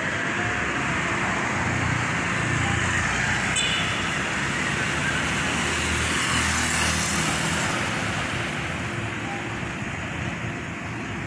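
Road traffic noise from engines and tyres on a city street, with a vehicle passing, loudest about six to eight seconds in.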